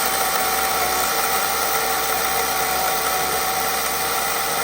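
Electric chainsaw running steadily with a constant whine, cutting into a tree stump by nibbling at the wood.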